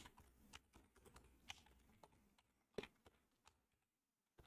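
Faint typing on a computer keyboard: scattered single keystrokes, with a slightly louder pair of clicks about three seconds in.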